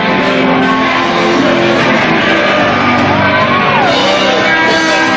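Loud live rock music from a concert, with electric guitar and a shouted vocal.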